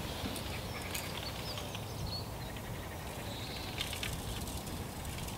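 Outdoor ambience: a steady low background rumble with a few faint, short bird chirps and some light clicks.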